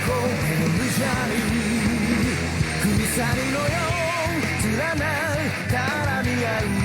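Hard rock anime opening theme: a full band with distorted guitars and a male vocal singing with vibrato.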